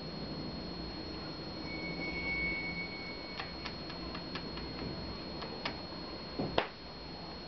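Quiet room tone with a steady hiss and a constant high-pitched whine, broken by a string of light clicks and one sharper knock near the end.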